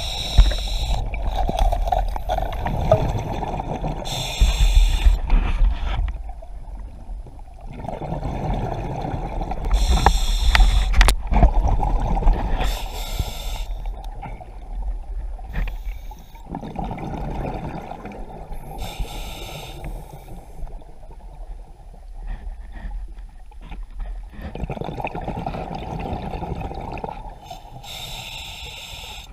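Scuba diver breathing underwater: a short hiss from the regulator on each inhalation, then a longer low rumble of exhaled bubbles. This is a slow cycle, about one breath every seven or eight seconds.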